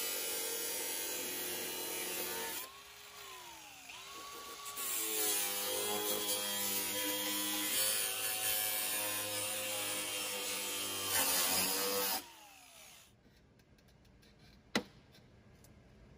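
Power cutting tool cutting through a 3rd-gen Toyota 4Runner's rear body sheet metal along a marked line. Its pitch sags once about three seconds in and picks back up, then it winds down and stops about twelve seconds in.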